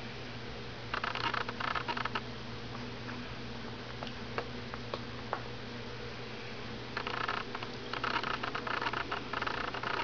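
Soft rustling and scrabbling as three-week-old standard poodle puppies squirm against their mother's coat to nurse. It comes in two spells, about a second in and again from about seven seconds on, with a few light clicks between, over a steady low hum.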